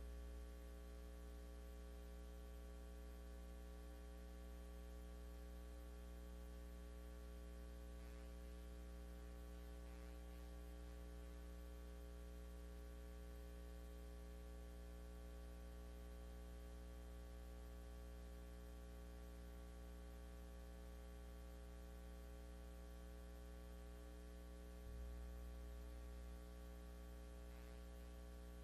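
Faint, steady electrical mains hum with a ladder of overtones, and no other sound; a short low thud swells the hum briefly about 25 seconds in.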